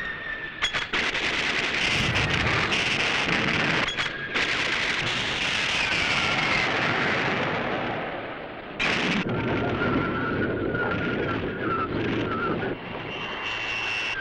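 Tokusatsu battle sound effects: a jet fighter's engine noise with rapid gunfire and explosions, cut abruptly at the edits a few times.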